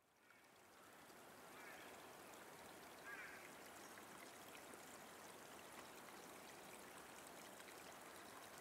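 Faint sound of a river's rushing water fading in from silence, with a couple of brief bird calls in the first few seconds.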